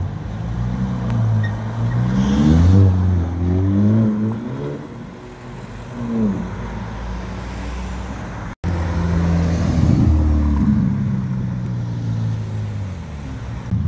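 Ferrari Roma's twin-turbo V8 revving and accelerating, its note rising in pitch several times, with an abrupt cut to another pass about two-thirds of the way in.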